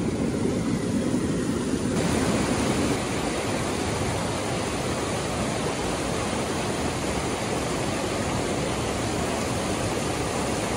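River water rushing steadily over rapids. About two seconds in, the rush turns brighter and fuller and then holds even.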